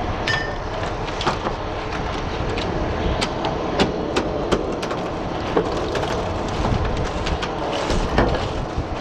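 Oyster shells clacking and knocking as they are culled on the boat's culling board, a dozen or so irregular sharp knocks over the steady run of the workboat's engine and the wind and sea.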